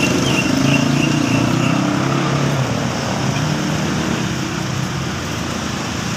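Street traffic: a motor vehicle's engine running close by for the first two to three seconds, over a steady wash of road noise.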